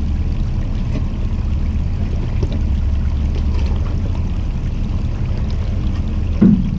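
Jeep Cherokee Trailhawk crawling at low speed down a rocky trail: a steady low engine rumble with a rushing noise over it.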